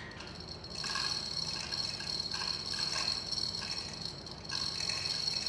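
High-pitched whine of a small motor running in spurts, cutting out briefly about four seconds in, with some rattling.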